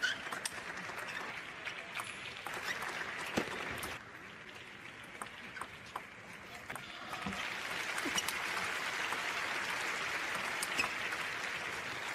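Table tennis ball clicking sharply off bats and table in rallies, over the noise of an indoor crowd. Applause and cheering swell from about halfway through.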